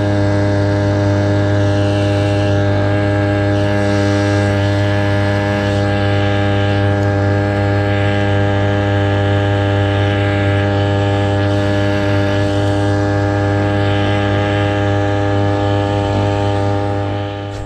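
A small boat motor pushing a fishing kayak runs at a steady, even speed, giving a loud low hum with a constant pitch.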